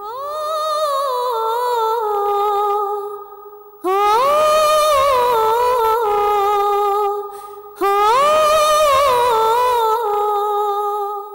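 Background music: a high, wordless singing voice holds three long phrases, each opening with a rising glide and then falling away in wavering ornaments.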